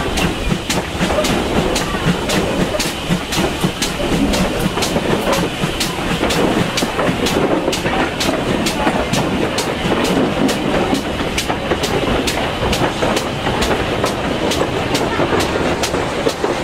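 GWR 4200 Class 2-8-0T tank locomotive working uphill: a steady, sharp exhaust beat about three times a second, over the rumble and clatter of the coach's wheels on the rails, heard from the leading coach.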